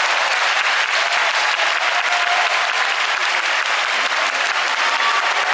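Sumo arena audience applauding steadily, with a few voices calling out.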